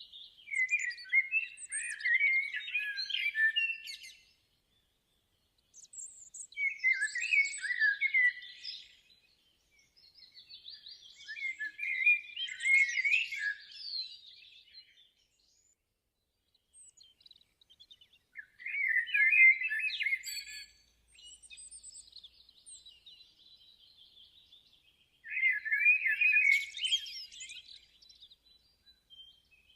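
A songbird singing in chirping, warbling phrases of a few seconds each, with short pauses between them, about five phrases in all.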